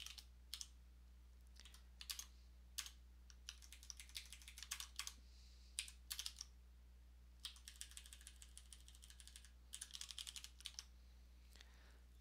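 Faint computer keyboard typing: scattered keystrokes with two quick runs of rapid typing in the second half, over a steady low hum.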